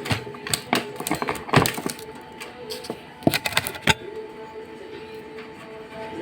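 A quick run of sharp clicks and knocks, like small metal parts and tools being handled, stopping about four seconds in, over a steady hum.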